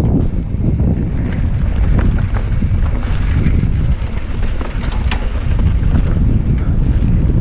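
Heavy wind rumbling on the microphone of a camera moving fast down a downhill mountain bike trail, with a few short clicks and rattles over it.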